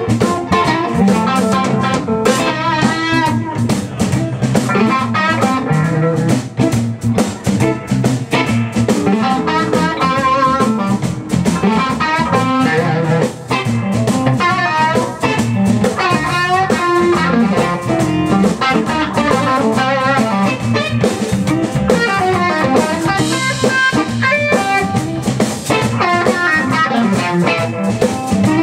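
Live electric blues: an electric guitar solo with bent notes, played on a sunburst Stratocaster-style guitar through a Longhorn amp, over a band with drum kit.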